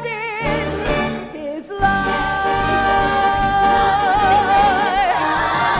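Musical theatre number with a woman singing over a pit orchestra. A short sung phrase with vibrato comes first, then from about two seconds in a long held high closing note, its vibrato widening near the end.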